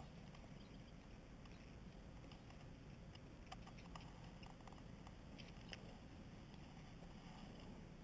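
Near silence, with a few faint, scattered clicks of needle-nose pliers working a fly's hook out of a small fish's mouth.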